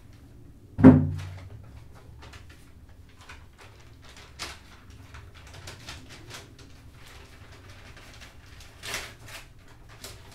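A person moving about and handling things: one sharp, loud knock about a second in, then faint scattered clicks and rustles, with a louder brief rustle near the end.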